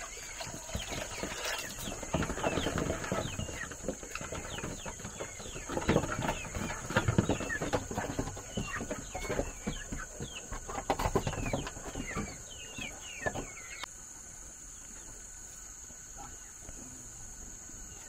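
Many short, high, falling chirps from birds, overlapping, over frequent rustling and knocks. The chirping and knocking stop about 14 seconds in, leaving a faint steady background.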